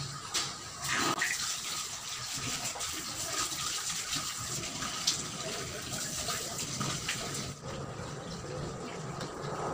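Water running from a wall-mounted tap into a clay vessel basin as hands are washed under the stream, a steady splashing rush.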